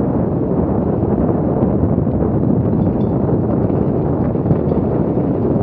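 Wind buffeting the bike-mounted camera's microphone, mixed with the rumble of a mountain bike's tyres rolling fast over a rocky dirt trail, with a few faint clicks from the stones.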